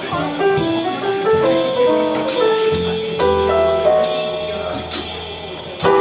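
Live jazz piano trio playing: a grand piano runs a single-note melodic line over plucked upright double bass notes, with regular ride cymbal strokes from the drum kit.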